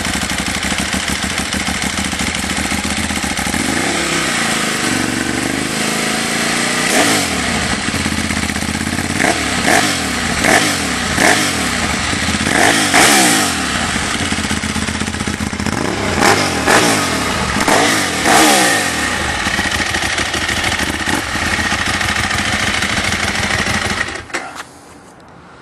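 Ducati 1098 S's L-twin engine at idle, then revved in a long series of sharp throttle blips, each rising and falling in pitch. It settles back to a steady idle and cuts off near the end.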